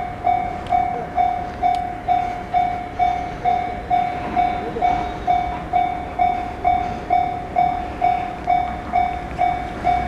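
Japanese railway level-crossing warning bell ringing its repeated electronic 'kan-kan' tone, a little over two strikes a second on one pitch. It stops near the end as the barriers begin to lift, the sign that the train has cleared the crossing.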